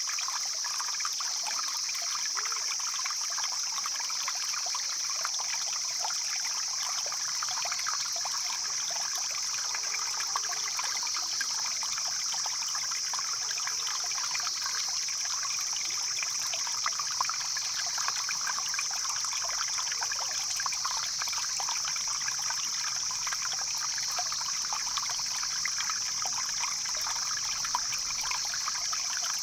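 Stream flowing steadily over rocks: a continuous trickling and splashing with a bright, steady high hiss.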